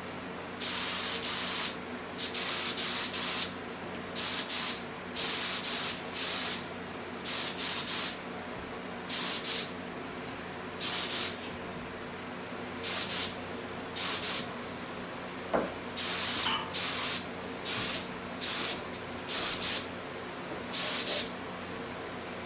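Air-powered gravity-feed paint spray gun hissing in a long series of short trigger bursts, each under about two seconds, with brief pauses between. The bursts stop about a second before the end. A steady low hum runs underneath.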